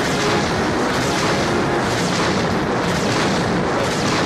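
Explosion sound effect from the Sankyo CR Fever Ginga Tetsudō Monogatari pachinko machine's reach animation: a long, dense blast of noise that stays loud and unbroken.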